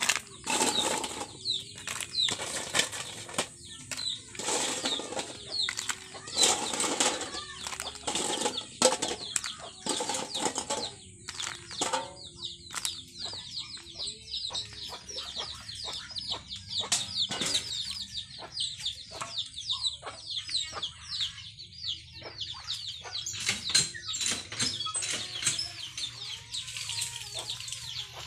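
Freshwater mussel shells clacking against each other and the metal basin, with water sloshing, as a hand stirs and washes them; these knocks and splashes are loudest in the first half. Poultry nearby keep up rapid high peeping and clucking, heard most plainly in the second half.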